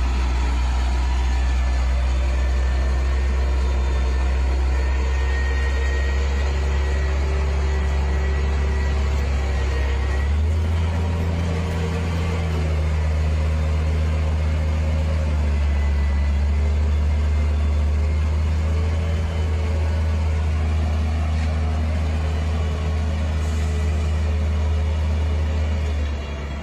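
Heavy dump truck's diesel engine running with a steady low drone as the truck drives through mud; the engine note steps up about ten seconds in.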